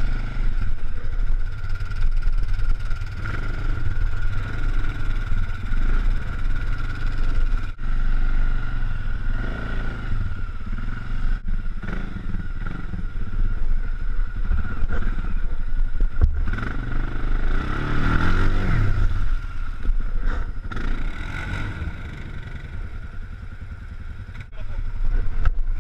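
ATV engine running at low speed as the quad works through deep mud, with a steady high whine over it, and a brief rev-up and drop about two-thirds of the way through. Heard through a helmet-mounted action camera.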